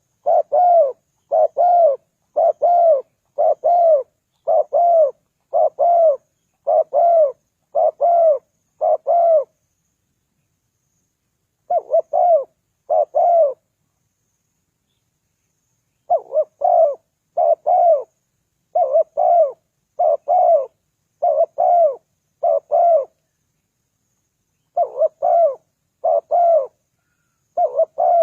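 Spotted dove cooing: short double-note coos repeated about once a second, in runs broken by pauses of a few seconds.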